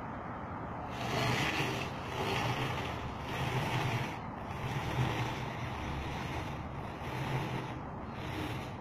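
Wind noise on the microphone, rising and falling in gusts about once a second over a steady low rumble.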